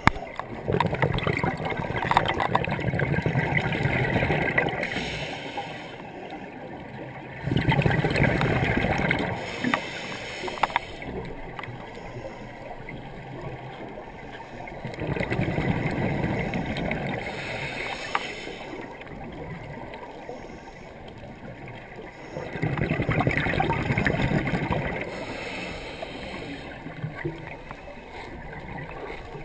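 Scuba breathing heard underwater: rushes of exhaled bubbles from a diver's regulator, four times, about every seven or eight seconds, with a quieter water hiss between breaths.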